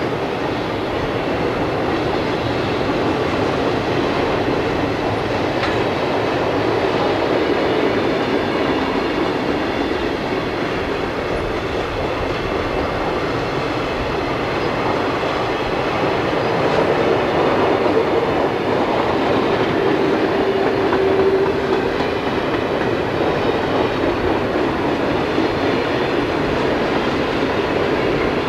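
Conrail mixed freight cars (boxcars, tank cars and covered hoppers) rolling past: a steady rumble and rattle of steel wheels on rail that swells a little in the second half.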